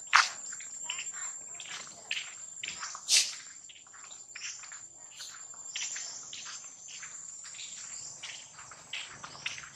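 Steady high-pitched insect drone, with many short sharp chirps over it, the loudest right at the start and about three seconds in.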